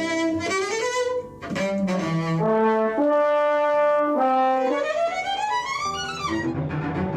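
Orchestra playing, with violins and brass carrying a melody that moves from note to note and slides upward about five seconds in.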